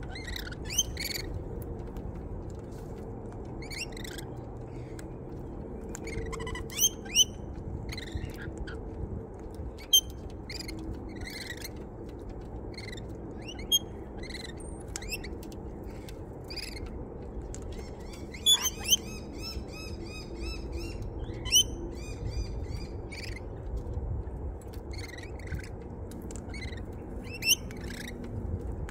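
Birds chirping and calling: many short, sharp calls scattered throughout, with a quick rattling run of repeated notes about two-thirds of the way through and a few sharp clicks, over a steady low rumble.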